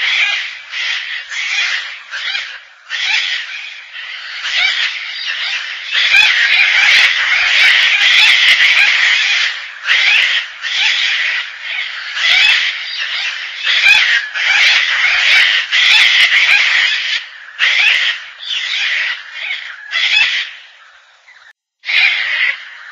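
Gang-gang cockatoo calling: a long run of harsh, rasping, creaky calls, repeated every second or so. They crowd together into a near-continuous stretch a few seconds in, and there is a short pause near the end.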